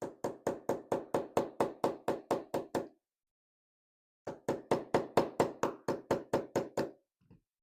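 Rapid, even hammer taps on a metal cam lock, about five a second, in two runs separated by a short pause about three seconds in.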